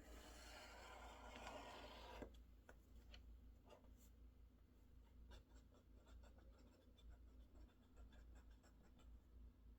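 Faint desk-work sounds: a scratchy rubbing for about the first two seconds, then scattered light clicks.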